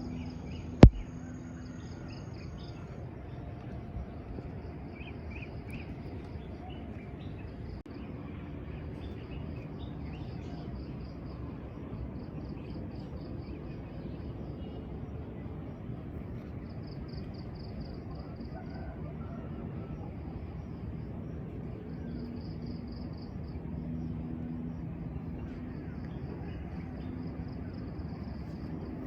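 Insects chirring outdoors in repeated pulsed trains of high chirps over a steady low background hiss, with one sharp click about a second in.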